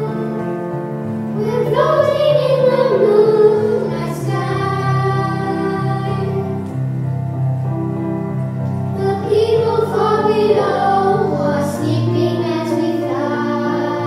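A group of young girls singing into microphones over an instrumental accompaniment. Two sung phrases come through, with the accompaniment carrying on between them.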